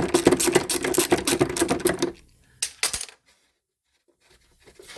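Socket ratchet clicking fast and metallically while a 13 mm nut on an exhaust bracket is undone. It stops about two seconds in, with a couple of last clicks, then goes briefly silent.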